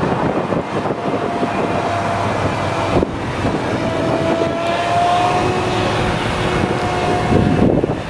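Claas Jaguar 970 forage harvester chopping whole-crop cereal, engine and chopper running steadily under load with a high whine over the dense machine noise.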